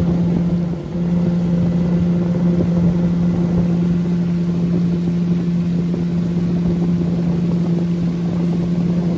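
1997 Johnson 6 HP two-stroke outboard motor running steadily at speed, pushing the boat along, with a brief dip in loudness about a second in.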